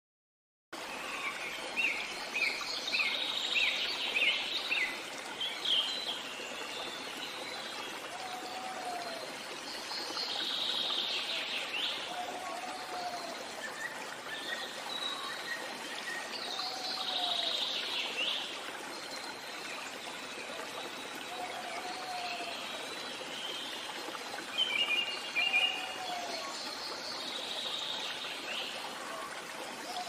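Steady rush of water from a small waterfall, with tropical forest birds calling and singing over it: a run of quick chirps near the start, then sweeping calls every several seconds. A short, low call repeats about every three and a half seconds from about a quarter of the way in.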